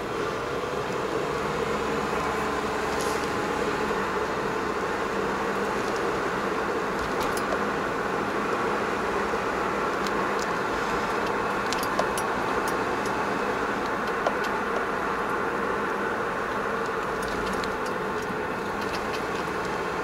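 Car engine and road noise heard from inside the cabin while driving slowly, a steady hum with a couple of light ticks.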